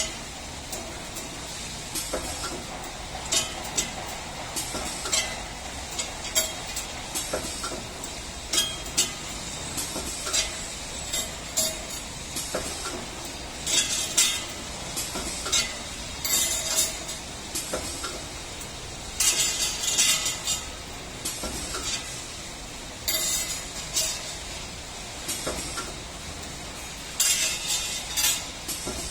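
CNC 3D wire bending machine running through its cycle: a steady mechanical hum under repeated metallic clicks and clinks, with short bursts of hiss every few seconds.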